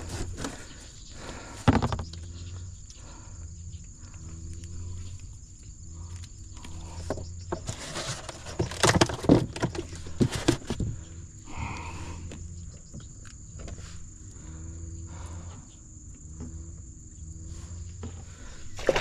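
A freshly caught catfish being handled in the boat, giving repeated low croaking grunts. Loud knocks and clatter come about 8 to 11 seconds in, with one earlier knock near the start.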